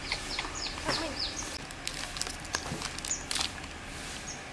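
Small birds chirping: many quick, high chirps, each falling in pitch, with a few light clicks among them.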